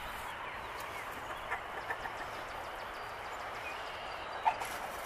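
Steady outdoor background hiss with a few faint short sounds, and one brief sharper sound about four and a half seconds in.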